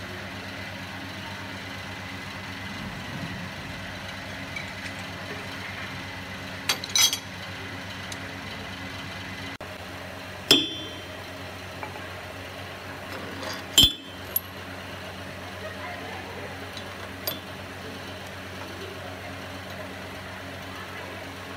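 Steel tooling clinking against the metal table and spindle of a wood shaper as its cutter and collars are fitted: a handful of sharp metallic clinks, the loudest about ten and fourteen seconds in, over a steady machine hum.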